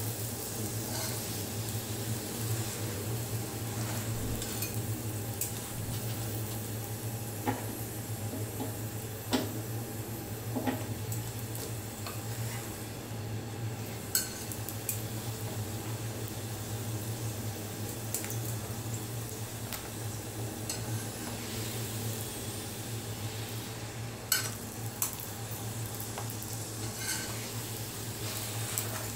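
Paratha frying in oil on a tawa, with a steady sizzle. A metal spatula clinks and scrapes against the griddle a handful of times as the flatbread is pressed and flipped.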